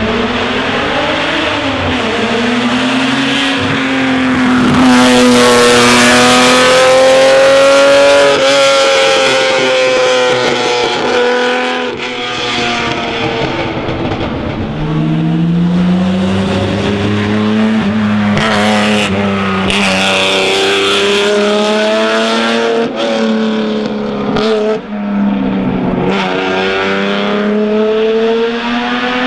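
1960 Ferrari 250 GT SWB's three-litre V12 driven hard. The engine note climbs through the revs and drops back at each gear change, over and over. It is loudest a few seconds in, and there are more shifts and lifts in the second half.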